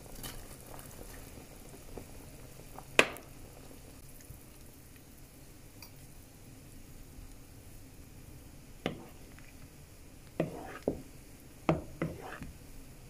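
Pot of borscht simmering with a low, steady bubbling as shredded cabbage is added and stirred in; a sharp knock about three seconds in and several lighter knocks near the end as the spoon strikes the pot.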